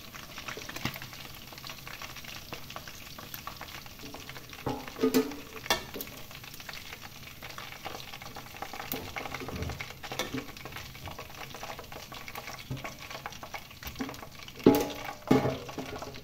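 Quails frying in hot oil in a pot, a steady sizzle. Metal tongs knock and clink a few times against the pot and the wire basket as pieces are lifted out, loudest near the end.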